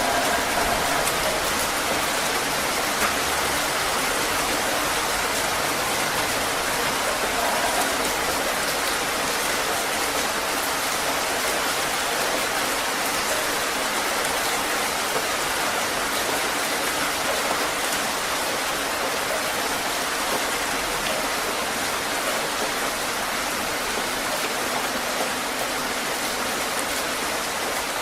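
Heavy rain falling steadily, a dense, even hiss that doesn't change.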